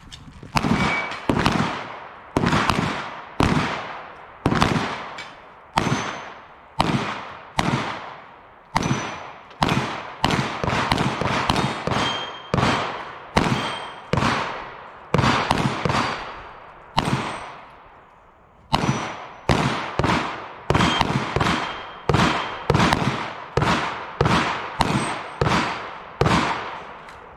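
Long string of gunshots fired one after another, roughly one to two a second, each report followed by a short echoing tail. The firing breaks off briefly about 18 seconds in, then resumes at the same pace.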